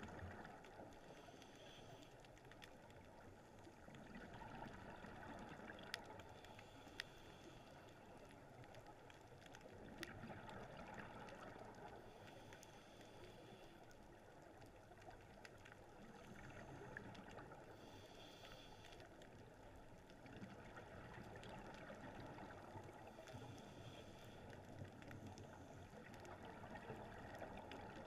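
Faint, muffled underwater noise from a camera in its housing, swelling and fading every few seconds in time with a scuba diver's regulator breathing and exhaled bubbles. There are a few sharp clicks near the middle.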